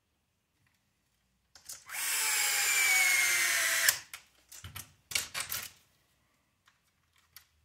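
Cordless electric screwdriver running for about two seconds, driving a screw into an RC buggy chassis; its motor whine falls slightly in pitch, then stops with a click. A few knocks follow as the parts are handled.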